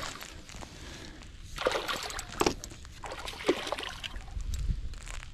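Water splashing as a hooked smallmouth bass thrashes at the surface beside the kayak, in two bursts about a second and a half and three seconds in.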